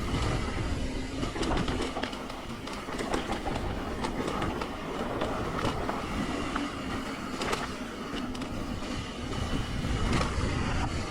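Mountain bike rolling fast over rough dirt singletrack: tyres on dirt and the chain and frame rattling with many quick clicks, over a steady wind rumble on the camera mic.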